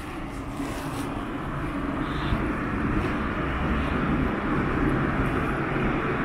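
Rumble of passing motor traffic, growing steadily louder.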